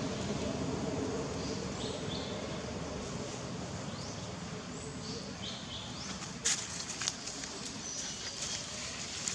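Short high-pitched chirping calls repeating every second or two over steady outdoor background noise, with a few sharp clicks in the last few seconds.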